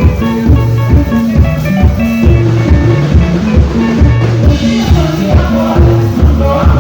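Live band playing through a PA system during a sound check: a steady drum beat under a busy, stepping bass line, with guitar or keyboard notes above.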